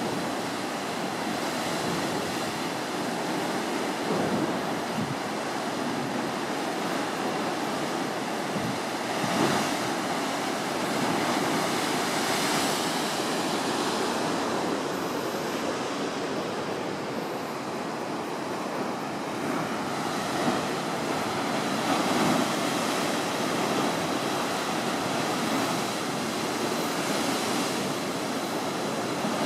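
Ocean surf surging and churning through a narrow rock gorge, a steady rushing wash that swells louder now and then.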